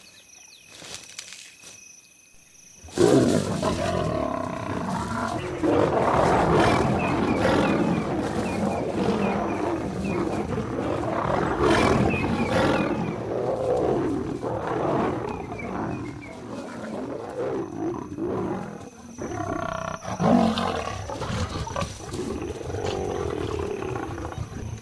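Crickets chirring steadily, then about three seconds in, lions suddenly break into loud snarling and growling that goes on, rising and falling. It is a fight: lionesses defending their cubs against a charging nomad male lion.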